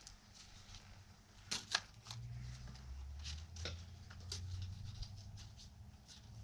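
Light handling on a workbench: rustles and scattered small clicks and taps as paper and parts are moved about, with a low steady hum coming in about two seconds in.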